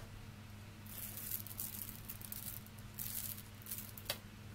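Thin plastic bag crinkling and rustling in several irregular spells as a small coffee scoop in its bag is pulled out of a foam box insert, with one sharp light tap just after the rustling stops.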